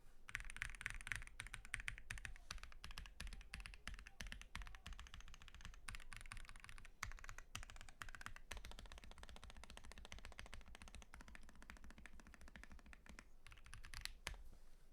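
Fast continuous typing on a custom 60% mechanical keyboard: a Tofu60 Redux acrylic case with an aluminium plate, lubed Vertex V1 switches, greased stabilisers and Domikey Semiconductor keycaps. A dense stream of key clacks, with one louder keystroke near the end.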